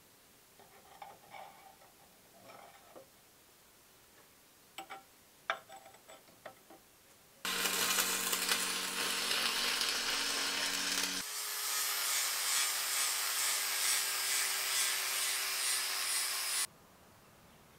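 Light metal clicks and taps as steel hairpin-leg parts are clamped. Then an electric arc welder crackles steadily over a low hum for about four seconds. An angle grinder takes over on the steel, with a steady whine under the grinding noise, and stops suddenly.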